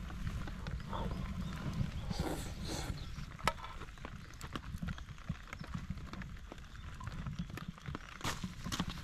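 Irregular light clicks and knocks, with a sharp one about three and a half seconds in, over a steady low rumble.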